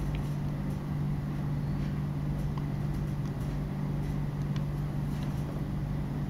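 Steady low background hum with a faint hiss, unchanging throughout.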